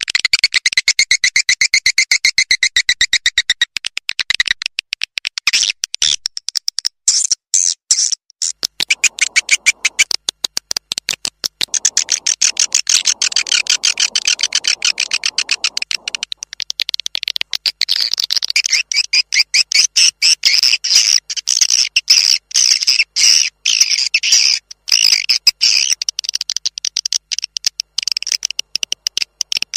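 Swiftlet calls from a swiftlet-farming lure recording: loud, high-pitched rapid chattering and clicking twitters, several birds layered in a dense stream whose pattern shifts every few seconds. This is the sound played from speakers in swiftlet houses to call wild swiftlets in to roost and nest.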